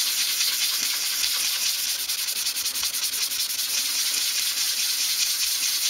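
Hand sanding with 240-grit sandpaper over a small wooden moulding strip: a steady scratchy hiss of quick, short rubbing strokes, back and forth and in small circles.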